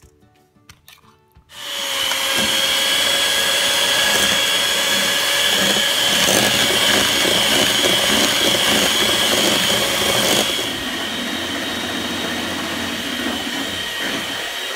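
A few faint spoon scrapes, then an electric hand mixer starts about a second and a half in, its beaters whipping chilled coconut cream in a stainless steel bowl into coconut whip. The motor runs steadily with a steady whine, getting somewhat quieter about ten seconds in.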